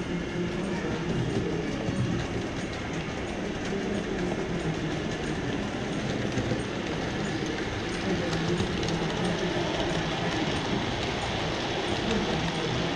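Model trains running on an exhibition layout: a steady running sound with a faint, regular light clicking.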